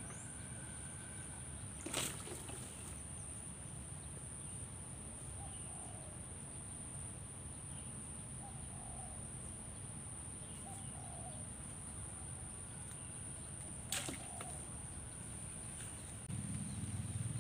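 Outdoor ambience: a steady high thin buzz, a few faint short chirps, and two sharp clicks about twelve seconds apart; a low rumble comes in near the end.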